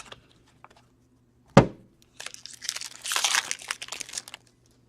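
A sharp knock, then a trading-card pack's wrapper being torn open and crinkled for about two seconds as a new pack of hockey cards is opened.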